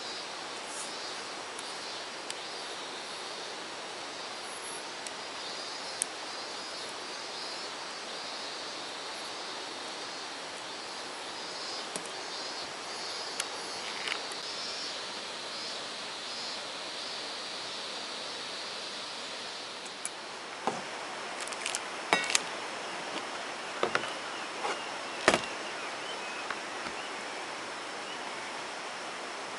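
Steady outdoor background noise with a high, steady buzz through most of the first twenty seconds. From about twenty seconds in, a handful of sharp clicks and knocks as objects such as a cup and a container are handled on a folding table.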